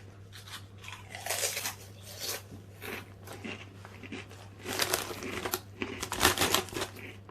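Doritos Guacamole corn chips being chewed, crunching in irregular bouts that are loudest about five and six seconds in, with some crinkling of the crisp packet.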